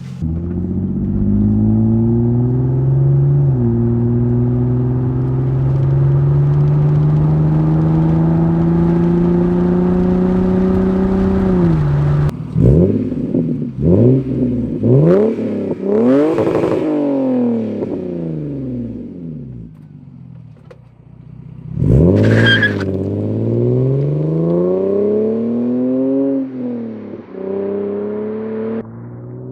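Lexus IS300's 2JZ-GE inline-six, freshly fitted with new plugs, wires and coils, running loud with its revs climbing steadily for about twelve seconds. It then rises and falls in pitch several times, drops low briefly, and revs up sharply again.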